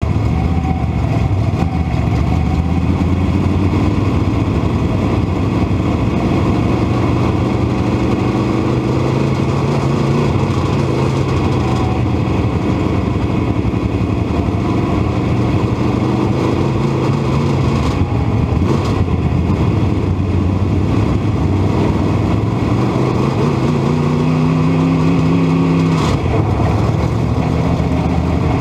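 Dirt modified race car's V8 engine running hard under racing throttle, heard from inside the cockpit. Its pitch climbs and falls as the throttle opens and closes, with a sharp drop off the throttle near the end.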